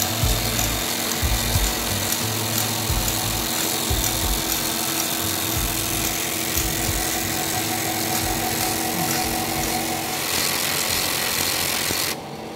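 DEC PC05 paper tape reader/punch running with a steady motor hum, punch tape feeding into it off a coil on a rotary table, with irregular low thumps underneath. The sound drops away abruptly near the end.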